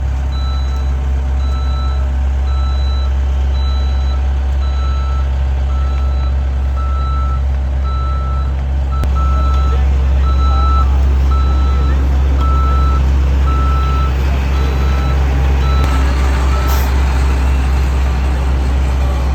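Heavy road-works vehicle reversing: its reversing alarm beeps about once a second over the low rumble of its engine. The engine gets louder about halfway through, and the beeping stops near the end.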